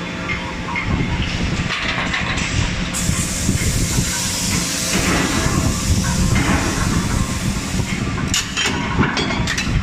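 Forge shop noise: a steady hiss and machinery hum, with a few short metallic clicks near the end.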